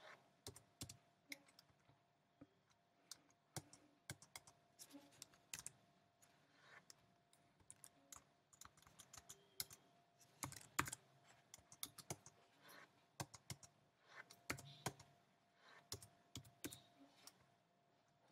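Faint computer keyboard typing: irregular keystrokes, a few a second with short pauses, over a faint steady hum.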